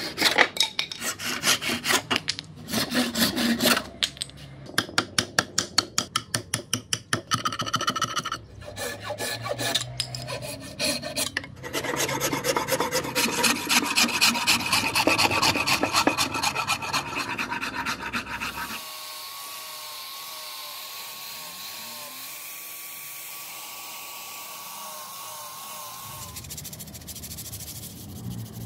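Hand tools working a Siamese rosewood blank: a handsaw cutting in repeated strokes, then a file rasping quickly along the wood. In the last third the strokes stop and a quieter steady hiss remains, with a faint wavering tone over it.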